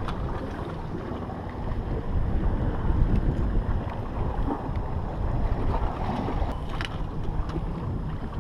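Wind buffeting the microphone over water washing against the jetty rocks, the rumble growing stronger about two seconds in, with a short sharp click a little after two-thirds of the way through.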